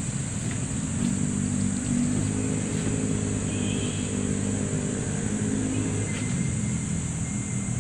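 A motor vehicle's engine running at a steady pitch, swelling about a second in and fading out near the end, as if passing by.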